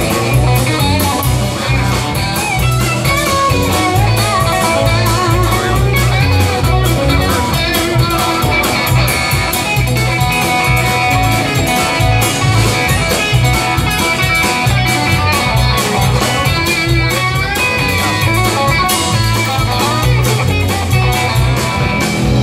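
Live country-rock band playing an instrumental break without vocals: electric guitars over bass and drums, with a steady beat.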